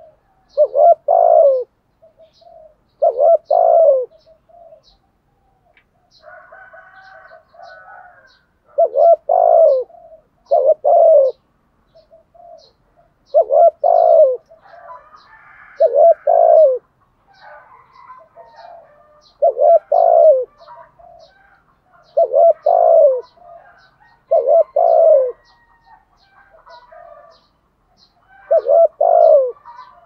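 Spotted dove cooing: about ten loud coo phrases, each about a second long, a few seconds apart and sometimes in close pairs. Fainter chirps from small birds come between them, over a faint high tick about twice a second.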